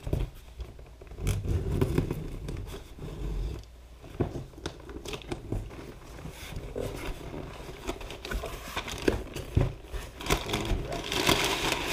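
Cardboard shipping box being opened by hand: packing tape torn, with cardboard flaps scraping and knocking. Near the end comes the crinkling rustle of crumpled kraft packing paper.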